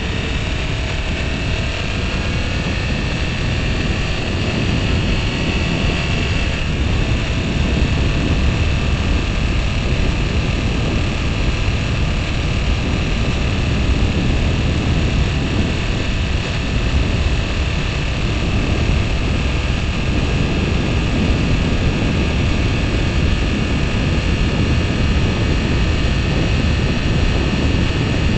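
Motorcycle riding at speed on an open road: steady wind rush and road noise over the engine's drone, with the engine's pitch rising slightly over the first few seconds as the bike accelerates from about 40 to 55 mph.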